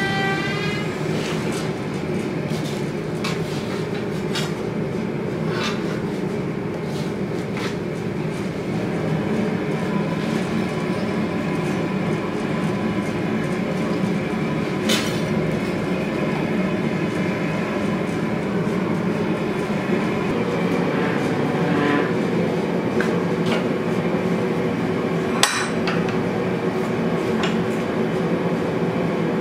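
Propane gas forge burning with a steady rushing noise, broken by a few sharp metallic clinks and one loud click near the end as the hot blade is handled.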